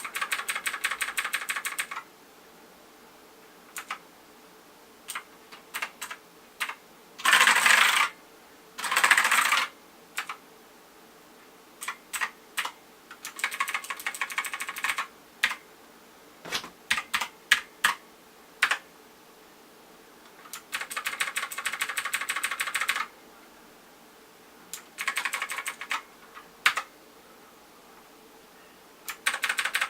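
iGuju M1KB mechanical keyboard with double-shot keycaps being typed on: fast runs of keystroke clicks alternating with single key presses. About seven and nine seconds in come two louder, noisier rushes, each under a second long.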